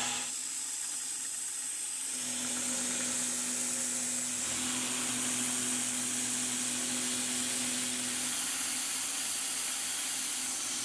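CNC milling machine cutting aluminium with an end mill, its spindle driven by a DMM DYN4 AC servo motor: a steady high hiss from the chip-clearing nozzle blowing over the cut, with a steady low hum from the spindle drive.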